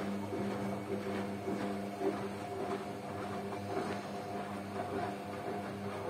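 Front-loading washing machines running a wash cycle: a steady motor hum while the drums turn, with irregular swishing of wet laundry and water tumbling inside.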